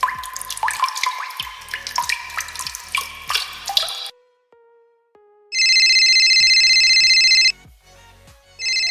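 A run of sound effects. First comes about four seconds of quick water-drop "bloop" sounds, each with a short upward glide. After a moment of near silence with a faint soft tone, a loud electronic telephone ring sounds for about two seconds, stops, and starts again near the end.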